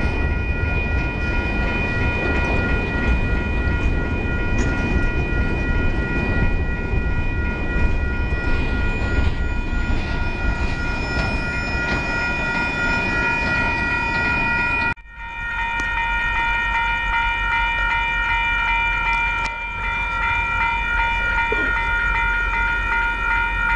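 Freight train cars rolling past a grade crossing with wheel and rail noise, while the crossing bell rings steadily. About two-thirds in, the rail noise cuts off abruptly and the crossing bell rings on alone.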